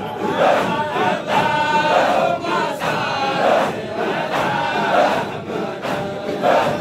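A large crowd of men chanting dhikr together in unison, the same short phrase repeated in a steady rhythm with a swell about every one and a half seconds.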